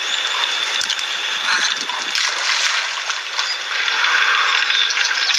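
Water splashing and trickling as a monkey wades through a shallow, grassy pool, over a steady background hiss.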